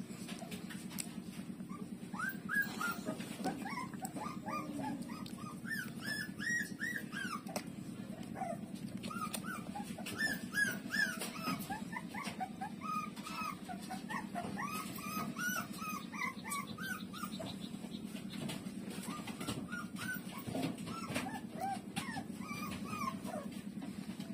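Puppies squeaking and whimpering as they nurse: many short, high squeaks in quick runs, over a steady low hum.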